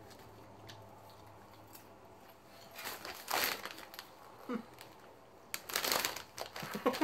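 A snack bag of popcorn crinkling as a hand rummages in it, in two bursts: about three seconds in and again near six seconds.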